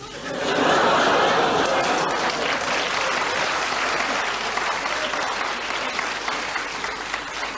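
Theatre audience applauding, swelling within the first second and then slowly dying away.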